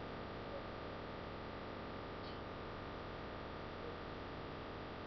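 Faint, steady background hiss with a low electrical hum: room tone with nothing else sounding.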